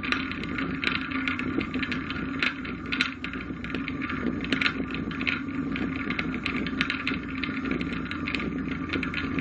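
Light aircraft's engine and propeller droning steadily, heard from inside the cockpit on approach to landing, with frequent irregular crackles over it.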